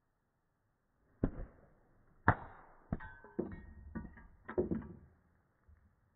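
A sling-thrown stone knocks the small bottle and figurine off the top of a standing glass bottle. A sharp hit is followed by several knocks and glassy clinks with brief ringing, the loudest strike about two seconds in, as the pieces land on the wooden table and settle.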